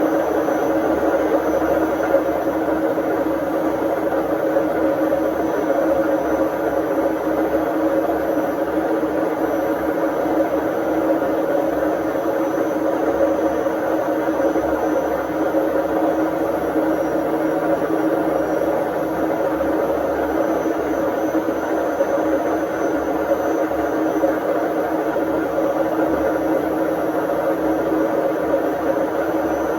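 Indesit IWD61450 washing machine running through its service test cycle: a steady mechanical hum and whir without a break.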